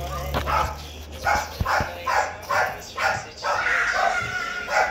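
A dog barking over and over, about two barks a second, with one longer, drawn-out bark near the end.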